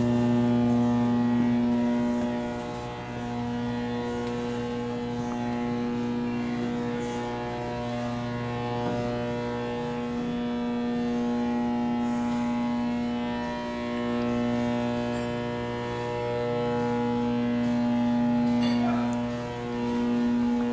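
Steady electrical hum of ship's engine-room equipment by the switchboard: a low, even drone made of several constant tones, swelling and fading a little but never stopping.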